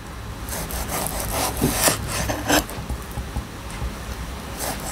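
Kitchen knife sawing through a block of seared bonito that is still partly frozen, in several uneven back-and-forth slicing strokes. The knife is not a sashimi knife, so it saws instead of gliding through cleanly.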